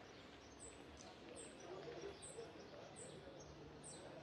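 Faint outdoor ambience with a bird giving a short, high chirp over and over, evenly spaced a little under a second apart.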